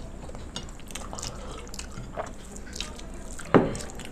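Eating by hand: fingers mixing rice with mashed bhorta and mouths chewing, a run of small wet clicks and ticks. A single louder knock about three and a half seconds in.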